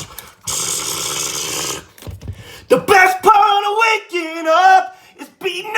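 A steady hissing noise for about a second and a half, then a voice singing in drawn-out, wavering notes.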